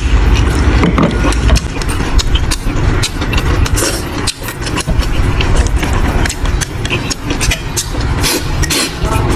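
Close-miked eating sounds: chewing and smacking with many quick clicks, over a steady low rumble.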